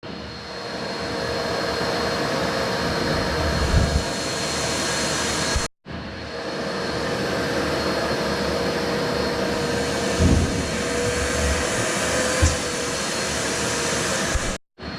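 Shop vac running steadily with a high whine over its whir, a few low thumps along the way, and two brief, abrupt drops to silence.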